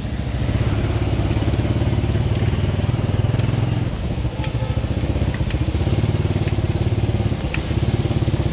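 Motorbike engine running steadily close by, with a fast, even pulse; a few faint ticks sound over it.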